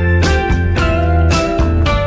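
Background music: an upbeat guitar-led instrumental with plucked strings and a steady beat.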